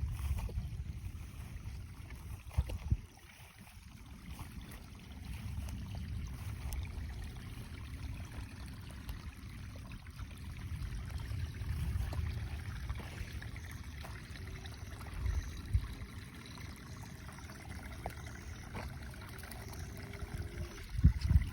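Storm runoff running and trickling down a creek draw, under a low rumble of wind on the microphone, with a few short thumps.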